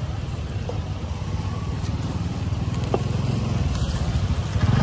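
Street traffic: a motor vehicle's engine rumble, growing louder near the end, with a few light clicks.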